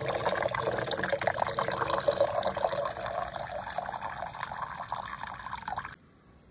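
Water pouring and splashing into a steel bowl of small fish, with a busy trickling and crackle; it cuts off abruptly near the end.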